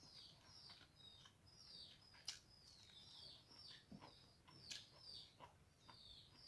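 Faint chirping of small birds: a steady run of short calls falling in pitch, about three a second, with a couple of sharp clicks about two and five seconds in.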